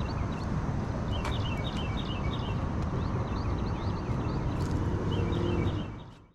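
Small birds chirping over and over above a steady low outdoor rumble, with a few faint clicks, fading out near the end.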